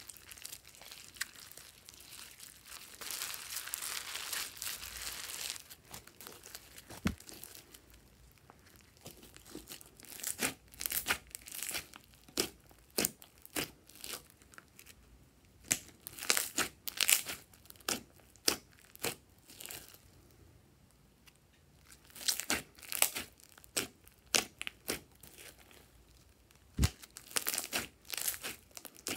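Hands kneading and squeezing slime packed with small foam beads, making crunching and crackling with sharp pops and clicks in clusters. A softer, continuous crackle runs from about two to six seconds in.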